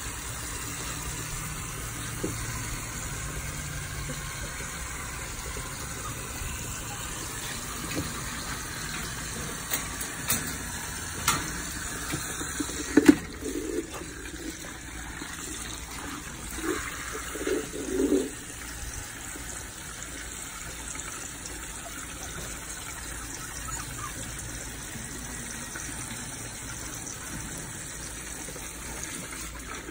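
Garden hose running a thin stream of water that splashes onto wooden deck boards, a steady trickling wash. A few short knocks and clatters come through about a third of the way in.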